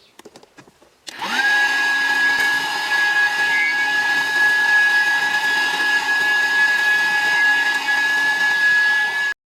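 Small electric motor of a homemade vacuum cleaner switched on: a few faint clicks, then about a second in it spins up within a fraction of a second to a steady high whine with a rush of air. It runs evenly and stops suddenly near the end.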